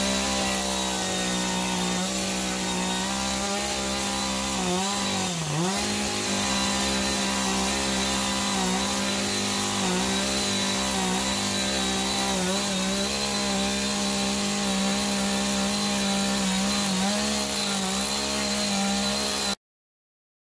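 Small gas chainsaw running at high revs while cutting into a wooden door sill, the engine note dipping briefly each time the chain bites, most deeply about five seconds in. It cuts off abruptly near the end.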